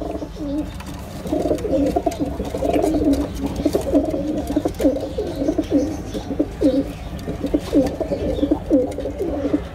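Domestic pigeons cooing in a loft: a close run of low, gliding coos, one after another and sometimes overlapping.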